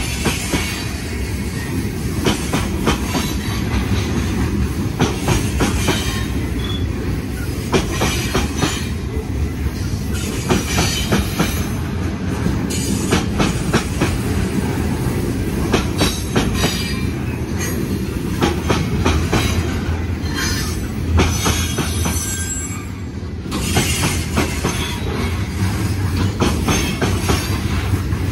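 A freight train's grain hopper cars rolling past at close range: a steady low rumble of wheels on rail, with many sharp clacks from the wheels crossing rail joints. The sound dips briefly about 23 seconds in.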